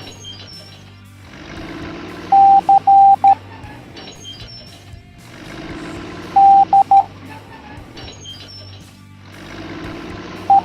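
Morse code beeps on a single steady tone over background music. About two seconds in it sends dash-dot-dash-dot, the letter C. About six seconds in it sends dash-dot-dot, D. Right at the end comes a single dot, E.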